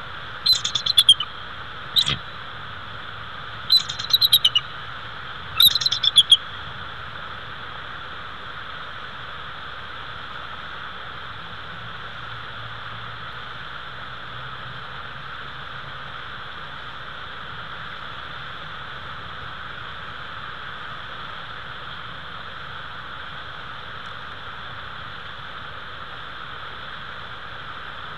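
Bald eagle calling: four bursts of high-pitched chittering calls in the first six seconds or so, then only a steady hiss.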